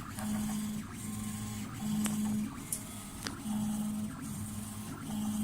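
Extrusion 3D printer running a print, its stepper motors whining as the print head moves: a steady tone in short runs broken by brief pauses, with a couple of faint clicks.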